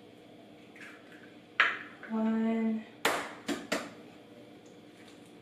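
Knocks and clicks of eggshell and a wooden spoon against a ceramic mixing bowl while an egg goes into flour: a sharp knock, a short hum, then a brief scrape and two clicks.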